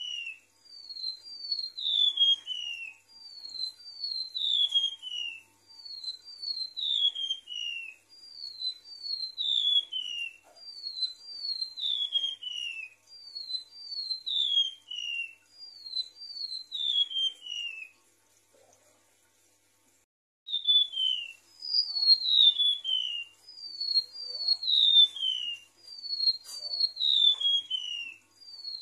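Golden-bellied gerygone (remetuk laut) song: high, thin whistled phrases, each sliding down in pitch, repeated over and over about once a second, with a short break a little past the middle.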